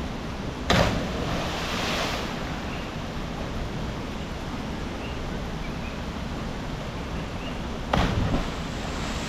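Steady rushing of water with wind on the microphone. Two sudden loud bumps or gusts hit the microphone, one about a second in, followed by a brief swell, and another near the end.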